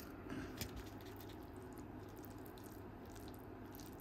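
A plastic fork stirring sauce-topped pasta in a pulp bowl: faint squelches and small clicks, sharpest about half a second in, over a low steady room hum.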